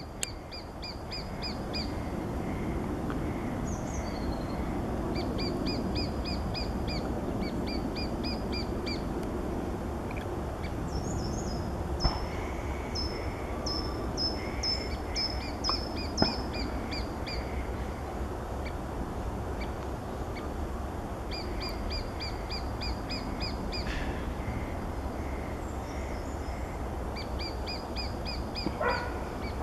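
Lesser spotted woodpecker calling: several runs of about a dozen quick, even, high-pitched notes, each run about a second long, over a steady low rumble.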